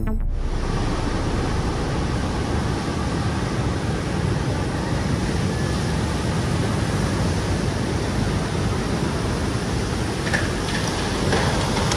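Tsunami surge water rushing inland over land: a steady, loud, continuous roar of churning water.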